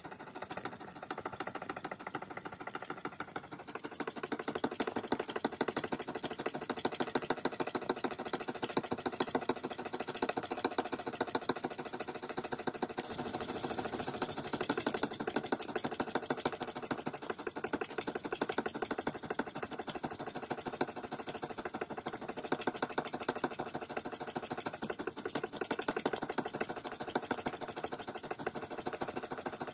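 Small brass model steam engine running fast on steam from a boiling flask, a rapid, steady clatter of ticks from its moving cylinder and linkage.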